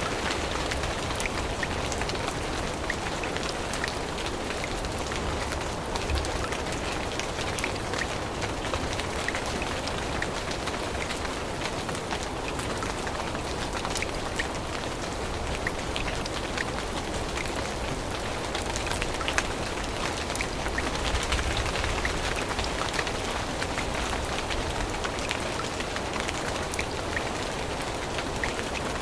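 Steady rain falling in a forest, with many separate drops striking leaves and the ground.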